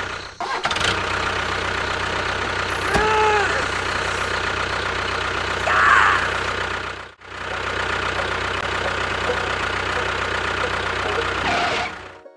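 An engine runs steadily, drops out briefly about seven seconds in, then resumes, with two short higher-pitched sounds over it. It cuts off just before the end.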